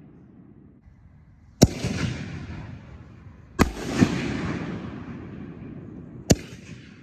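Golden Eye 6-inch canister shell fireworks firing and bursting: four sharp booms, two of them close together near the middle, each trailing off over a second or two.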